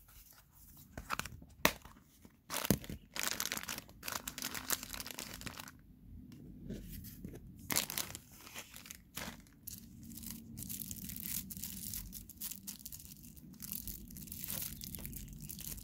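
Thin plastic packaging bag crinkling and tearing as it is unwrapped, with scattered sharp clicks and knocks from a hard plastic glasses case being handled.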